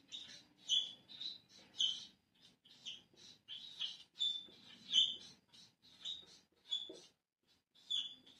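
Marker pen squeaking on a whiteboard during handwriting: an irregular run of short, high squeaks, one stroke after another with brief gaps between.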